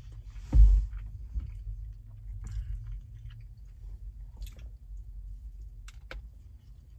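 A person chewing a mouthful of soft frittata, with small wet mouth clicks. A short loud burst of noise comes about half a second in, and two sharp clicks near the end as another forkful is bitten.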